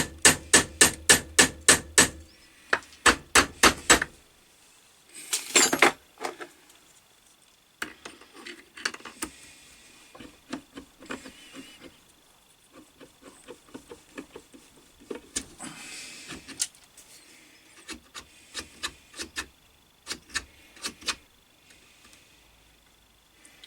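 Hammer striking a steel finger of an Atlas 10 lathe's fixed steady: a rapid run of blows, about four or five a second, then a few more, followed by a short scrape and lighter scattered taps and knocks of metal parts being worked.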